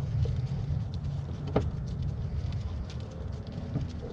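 Faint clicks of a screwdriver backing a T20 Torx screw out of a van's plastic door trim panel, over a steady low rumble.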